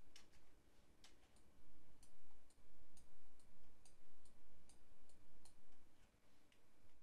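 Light, irregular clicking of a computer mouse, about two or three clicks a second.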